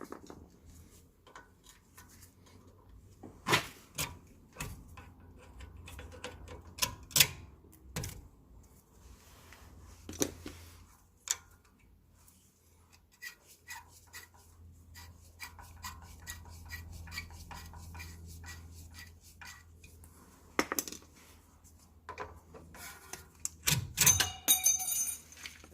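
Irregular metallic clicks, taps and clinks of tools and brake parts being handled while a rear brake caliper is taken apart for a pad change, with a louder run of ringing metal clinks near the end.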